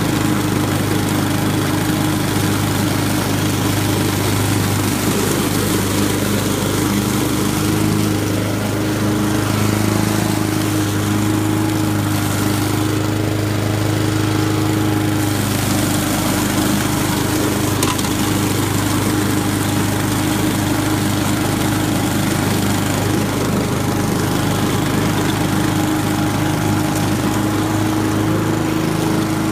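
Honda walk-behind lawn mower engine running steadily at constant speed while the mower cuts through a layer of fallen leaves on the grass.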